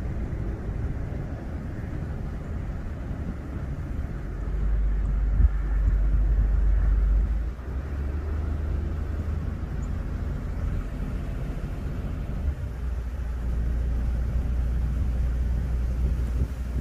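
Road noise of a car driving slowly, heard from inside: a steady low rumble of tyres and engine, heavier for about three seconds near the middle, with one brief thump about five seconds in.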